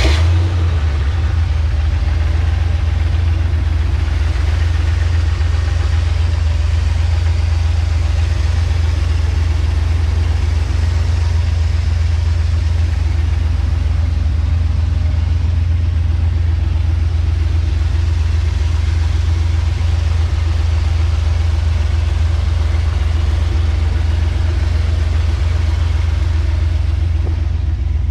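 The 1955 Chevrolet 3100 pickup's 355-cubic-inch big-cam V8 idling steadily with a deep, even rumble.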